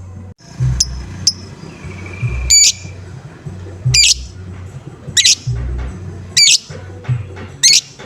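Lovebird calling in the 'ngoek-ngoek' style: two short high chirps, then five loud, harsh calls about one every 1.2 seconds. Background music with a steady bass beat plays underneath.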